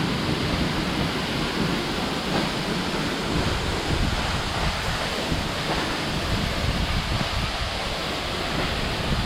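Steady rushing of water falling at the Asenema waterfall, an even roar with no breaks.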